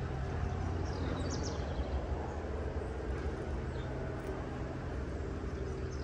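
An orange tabby Persian cat purring close to the microphone: a steady low rumble, with a few short bird chirps about a second in.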